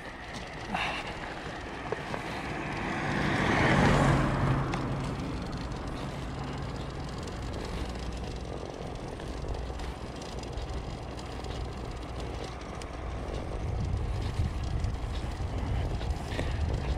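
A car passes on the road, its engine and tyre noise swelling and fading about three to five seconds in. Another vehicle approaches and grows louder near the end. A few light clicks are heard in between.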